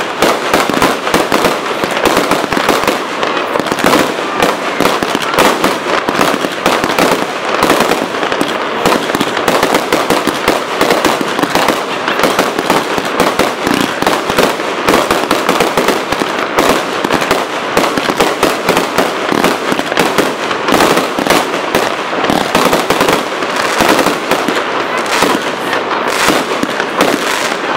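Aerial fireworks display: a dense, unbroken run of bangs and crackling bursts, many every second.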